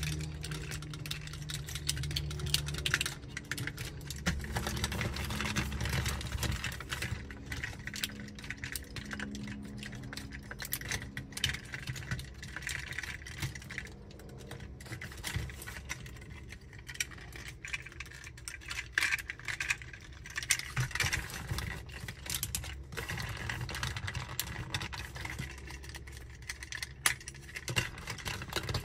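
Magic Square MS-02 Light of Peace transforming robot figure being handled and posed: irregular small clicks and light rattles of its parts being moved and set into place.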